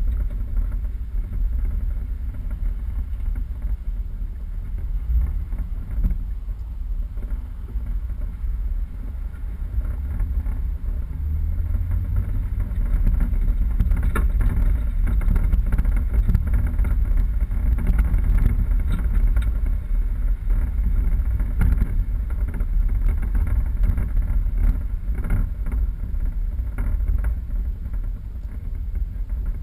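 A 4x4 driving off-road: steady low rumble of engine and tyres, with scattered knocks and rattles through the middle and later part.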